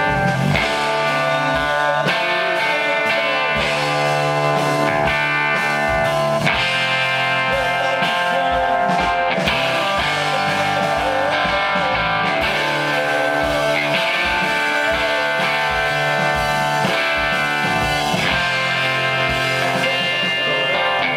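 Live blues-rock band playing an instrumental stretch, electric guitar to the fore over bass and drums, with no singing.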